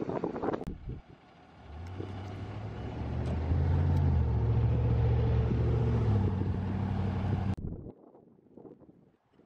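Fire engine's diesel engine running, loud and low, its pitch stepping up and down a few times, then cut off abruptly near the end. Wind rumbles on the microphone in the first second.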